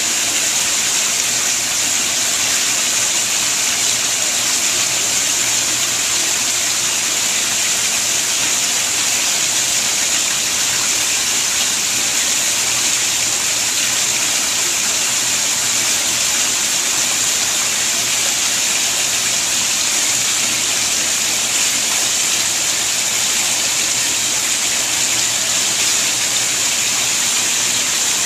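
Water pouring in a sheet from a filter outlet into a koi pond: a steady, unbroken splashing rush.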